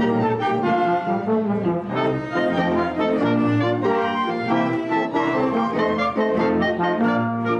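Society dance orchestra playing dance music, with brass leading.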